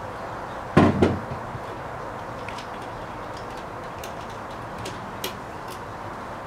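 One louder knock about a second in, then scattered small metal clicks and taps from handling an electrical outlet, its wire and a screwdriver while a wire is fastened to a terminal screw.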